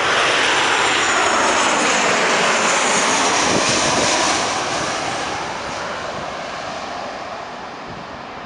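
Airbus A380-800 on its takeoff roll, its four Engine Alliance GP7200 jet engines at takeoff thrust: a loud roar with a high whine that falls in pitch. The roar fades steadily from about four seconds in as the aircraft accelerates away.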